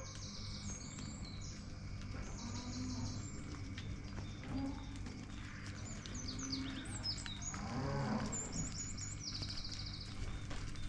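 Dairy cows mooing: several short moos and one longer, louder moo about eight seconds in.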